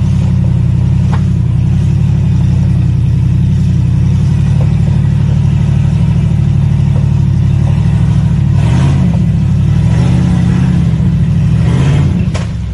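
LS V8 engine of a rock-crawling off-road rig running steadily under load, its pitch shifting with a few revs about two-thirds of the way in, with some light clatter.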